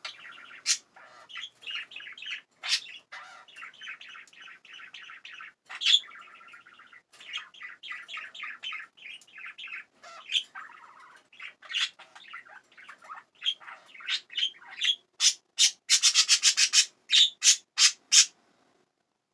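Pet budgerigars chattering and warbling in quick short chirps, with a fast run of louder, sharper chirps near the end that stops suddenly.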